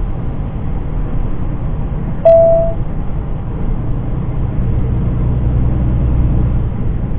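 Semi truck driving: a steady low drone of engine and road noise, with one short mid-pitched beep a little over two seconds in.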